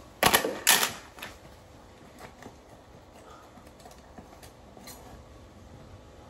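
A utility knife being handled right by the microphone: two loud clattering knocks close together under a second in, then a few faint scattered clicks.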